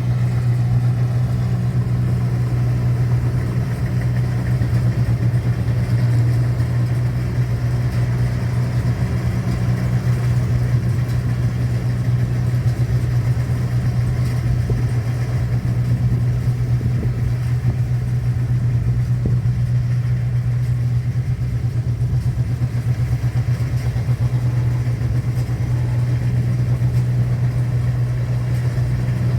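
Engine of a rice-processing machine running at a steady speed, a constant low hum with no change in pitch.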